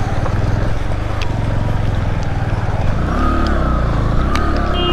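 Bajaj Platina motorcycle's single-cylinder engine running at low speed over a rough, muddy dirt road, with a short horn beep near the end.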